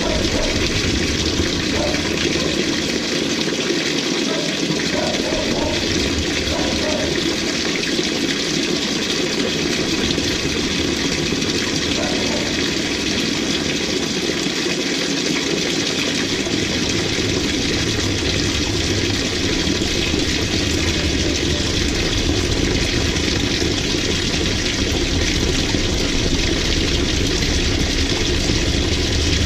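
LG 18 kg top-load washing machine on a delicate cycle, with a steady rush of water in the drum. A low hum grows stronger about halfway through.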